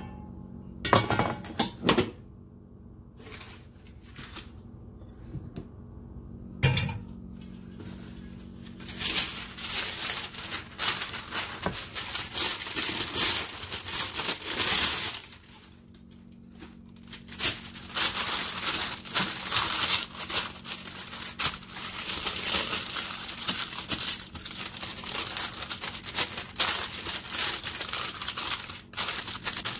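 Parchment paper crinkling as it is crumpled and pressed into a round metal cake pan. The crinkling is dense and continuous from about nine seconds in, with a short lull in the middle. Before that there are a few separate knocks and scrapes.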